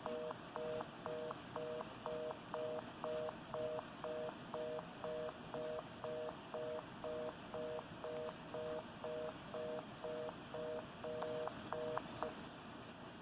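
North American telephone fast busy (reorder) signal: a two-tone beep pulsing about twice a second, meaning the call cannot be completed. It stops shortly before the end, leaving faint line hiss.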